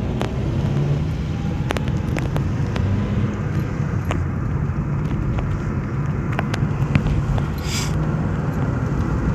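Steady engine and tyre noise of a car driving on the highway, heard from inside the cabin, with scattered light clicks and knocks.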